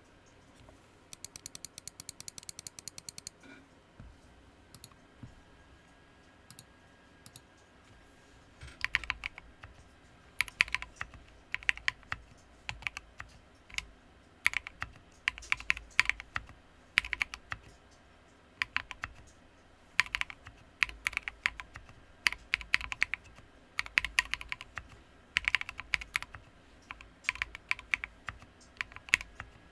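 Typing on a Sequence mechanical keyboard with lubed Poseidon switches and MT3 keycaps. A quick run of fast, light clicks comes about a second in, then a few single key presses, and from about a third of the way through, bursts of key strikes every second or so.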